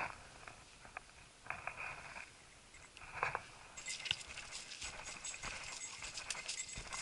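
Footsteps crunching through dry fallen leaves on a forest trail, a dense crackling that starts about four seconds in. A few short, quieter sounds come before it.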